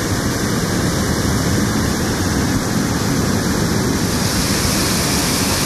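Steady rush of flowing river water: a loud, even noise with no breaks.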